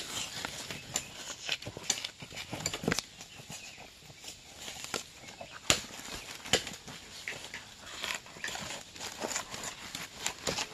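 Irregular sharp knocks, snaps and dry rustling of cinnamon bark being worked and peeled off the trunk by hand.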